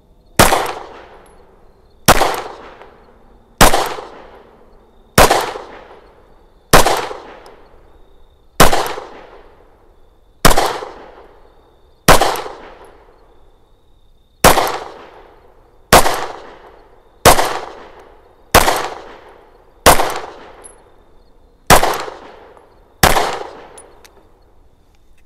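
Fifteen single 9mm shots from an FN 509 CC Edge pistol with its compensator fitted, fired at a steady deliberate pace roughly every one and a half to two seconds. Each sharp report is followed by a short echoing tail.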